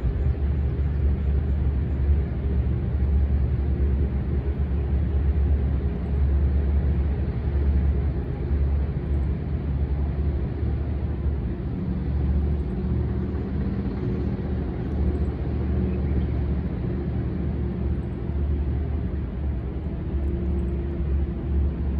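Tank engine running steadily: a continuous heavy low rumble with a faint higher hum that firms up slightly in the second half.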